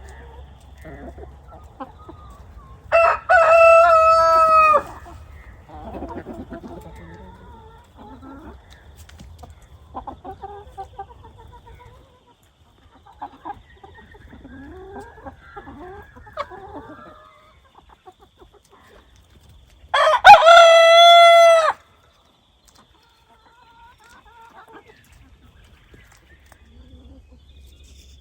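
A rooster crowing twice, each crow a loud, drawn-out call of about two seconds, about three seconds in and again near twenty seconds, with hens clucking softly in between.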